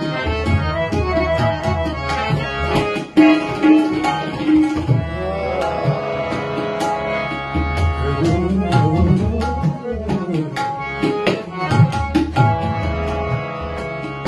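Tabla played in a dense run of strokes over held harmonium notes, with no singing.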